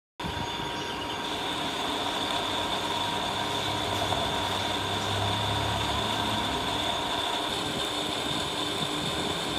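Metal lathe running while a carbide tool turns a steel gear shaft: a steady machine drone with a constant high whine, starting suddenly just after the beginning.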